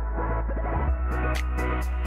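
Background electronic music with a steady bass line; a regular ticking beat comes in about a second in.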